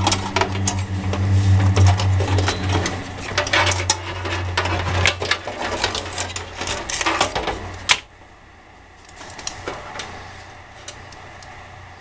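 Clicks and rattles of a motherboard and its cables being worked loose from a metal computer case, over a steady low hum. The sound drops off suddenly about eight seconds in, leaving only a few faint clicks.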